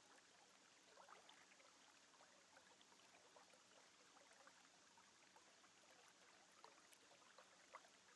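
Near silence: a faint steady hiss with scattered small crackles.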